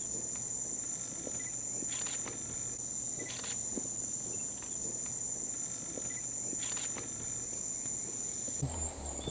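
Steady high-pitched insect drone of tropical forest ambience, with faint short whistled notes heard twice.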